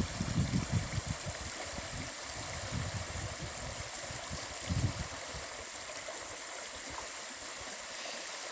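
Creek water bubbling steadily over rocks, an even rushing hiss, with irregular low rumbling thumps over it in the first half that die away by about five seconds in.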